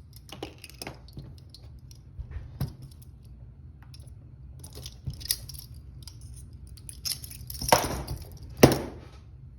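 Handcuffs being shimmed open: scattered light metallic clicks and clinks, with two louder metal clanks near the end.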